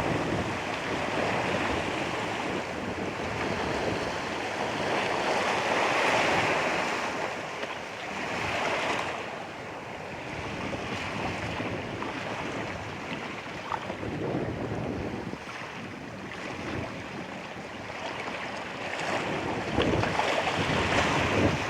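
Ocean waves washing onto the shore, a steady wash that surges and ebbs, growing loudest near the end, with wind buffeting the microphone.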